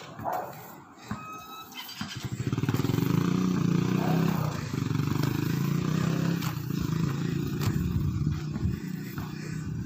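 A motorcycle engine running close by, loud from about two seconds in and fading near the end as it passes.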